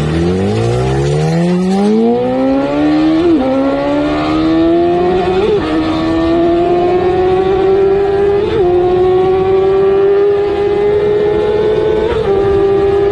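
Motorcycle engine under hard acceleration, its pitch climbing steeply and then more slowly, with upshifts about three, five and a half, eight and a half and twelve seconds in.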